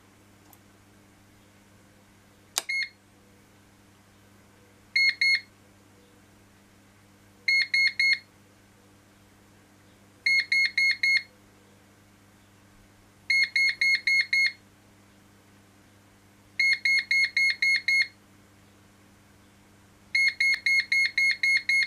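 The Daystate Air Wolf MCT air rifle's electronic beeper sounds groups of short high beeps about every three seconds, each group longer than the last. The rifle is counting up through its settings-menu stages toward stage seven. A single click comes about two and a half seconds in.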